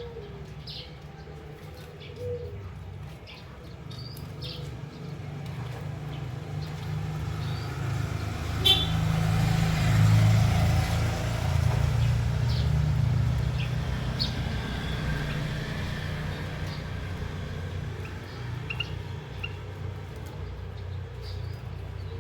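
A passing motor vehicle's engine rumble that swells to its loudest about halfway through and then fades, with short high chirps from small caged finches over it.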